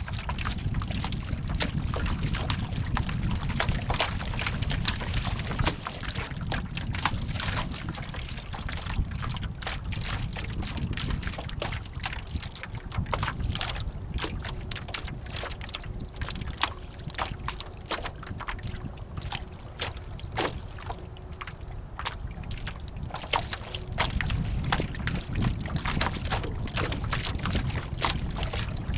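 Wind buffeting the microphone, with water slapping and lapping against the hull of a small sailboat in frequent short splashes. The wind rumble eases in the middle and picks up again near the end.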